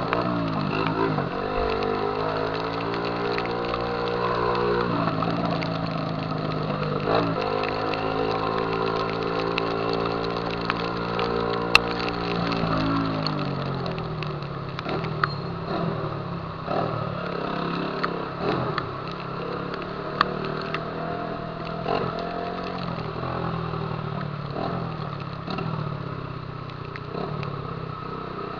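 Honda CG 150 Titan's single-cylinder engine through a loud aftermarket 'Viúva-Negra' exhaust, rising in pitch as it accelerates twice. About halfway through the throttle closes and it drops to a rough, uneven note with scattered sharp pops and clicks.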